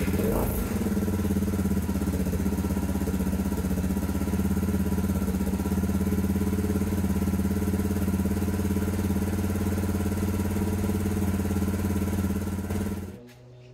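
Suzuki DR650's single-cylinder four-stroke engine idling steadily just after catching on a cold start with a little choke, on freshly changed carburettor jetting and new spark plugs. It stops abruptly near the end.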